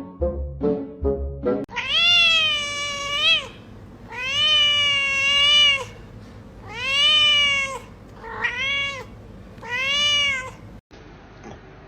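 A domestic cat meowing five times in long, drawn-out, loud calls, each rising at the start and falling away at the end, the last two shorter. Brief music with short repeated notes comes before the first meow.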